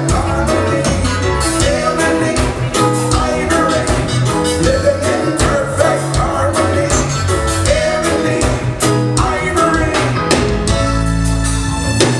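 Live reggae band playing a song, a singer over guitar, bass and drums.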